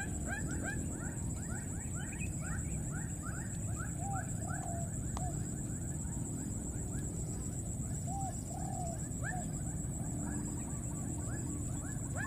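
Baby monkeys calling: a rapid series of short, rising, high squeaks several times a second, thinning out midway and picking up again near the end, with a few lower, longer arched coos in between.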